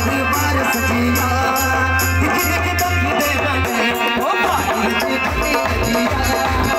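Live folk dance music for a kud, amplified through a PA system: a steady beat with heavy bass and a rattling percussion pattern, with a male singer on microphone.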